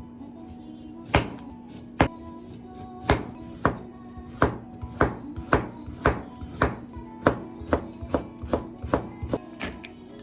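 Kitchen knife chopping on a cutting board, sharp strokes that start about one a second and quicken to about two a second, over soft background music.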